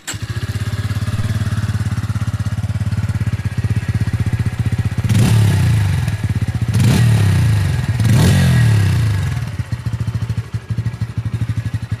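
Bajaj Pulsar P150's single-cylinder engine idling at the exhaust, blipped three times, about five, seven and eight seconds in, each rev falling back to a steady idle.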